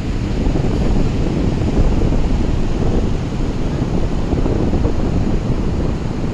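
Sea surf washing continuously, a steady rush of noise heavy in the low end with no single wave standing out.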